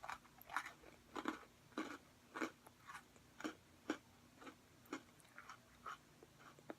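Close-miked mouth chewing a Cherry Cola Oreo sandwich cookie with popping candy in the filling: soft, wet chewing sounds about twice a second.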